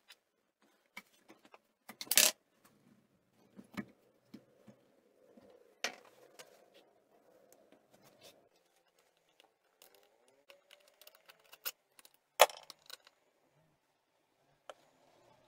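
Metal parts of a Honda P50's rear-wheel engine unit being handled and dismantled: scattered clicks and clinks, with two sharp knocks about two seconds in and about twelve seconds in.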